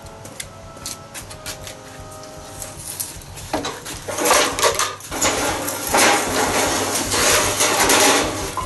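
Junk being shifted and pulled out of a cluttered shed: a few light clicks at first, then from about three and a half seconds in a long stretch of loud clattering and scraping of hard pieces knocking together.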